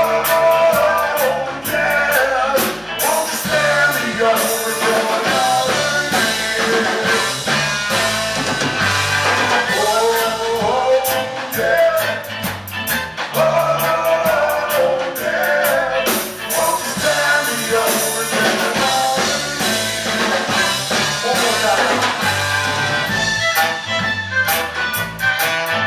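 Live band music with saxophone, fiddle, electric guitars and drums playing together, with busy wavering melody lines over a steady bass; drum and cymbal hits come through more sharply near the end.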